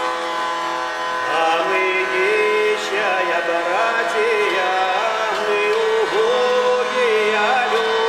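Russian hurdy-gurdy (kolyosnaya lira) sounding a steady drone, with a man's voice singing a slow, ornamented melody over it from about a second in. This is a Russian spiritual verse (dukhovny stikh) of thanks in the old lira players' tradition.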